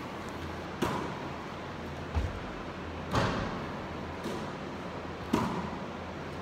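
A basketball thudding in an echoing gym: about five knocks roughly a second apart as it bounces on the hardwood floor, hits the rim and is caught, each followed by a short ringing echo.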